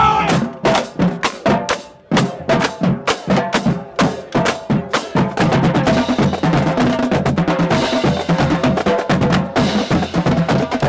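Marching band drumline playing a fast cadence on snare and bass drums, with a short break about two seconds in.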